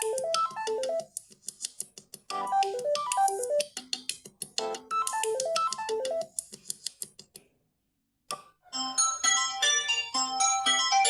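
Samsung Galaxy Tab A7 Lite ringtones. A short melody of falling notes repeats a little over every two seconds and stops about seven and a half seconds in. After a short silence, a different ringtone of quick, high chiming notes starts near the end.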